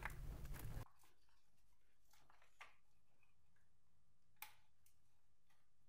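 Near silence in a small room. Faint clicking and handling noise in the first second stops abruptly, then a few faint isolated clicks follow, from hand work on the engine's parts.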